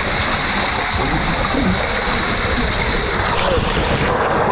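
Loud, steady rush of water sliding down a water slide, heard from a rider going down it, mixed with wind on the microphone.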